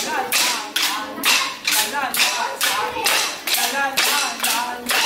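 Dance sticks struck together in a steady rhythm during a stick dance, about two sharp clacks a second, with voices calling out between the strikes.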